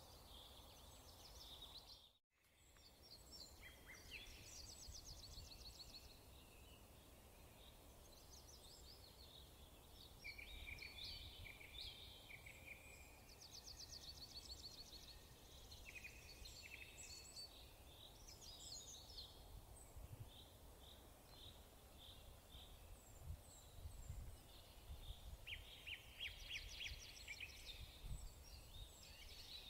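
Faint songbirds chirping and trilling, several calls overlapping. There is a brief total dropout of sound about two seconds in.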